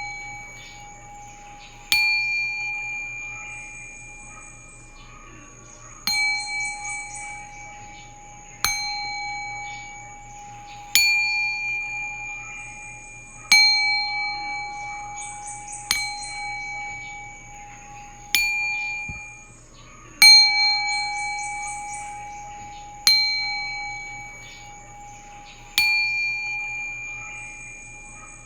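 Singing bowls struck one after another, about every two and a half seconds, each strike ringing on in clear steady tones and slowly fading, over a faint low drone.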